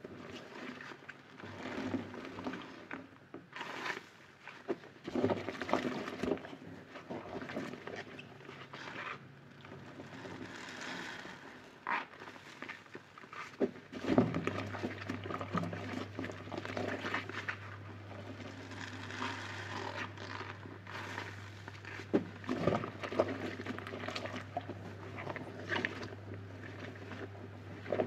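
A soapy sponge squeezed and kneaded by rubber-gloved hands in a basin of thick suds: irregular wet squelching and squishing with crackling foam. About halfway through a low steady hum starts underneath.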